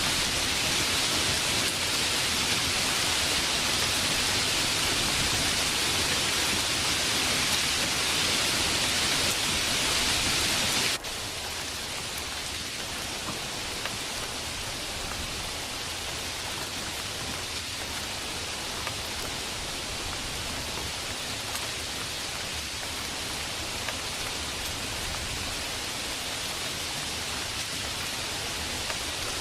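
Steady rain falling as an even hiss; about eleven seconds in it cuts suddenly to a quieter, less hissy rain that stays steady.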